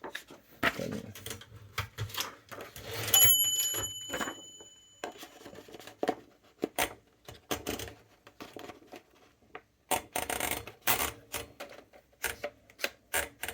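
Montgomery Ward Signature 510D typewriter being typed on, its keys striking in irregular clicks that come thickest near the end. About three seconds in, its bell rings once and fades over about two seconds.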